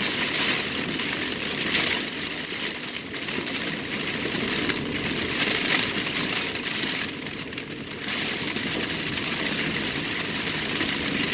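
Heavy rain pelting a car's windshield and roof, heard from inside the cabin, with the windshield wipers running at full speed and the car's running noise underneath.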